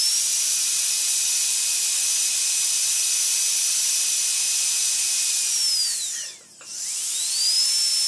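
Dental drill whining at a steady high pitch with a hiss. About five and a half seconds in it winds down and briefly drops away, then spins back up to full speed about a second later.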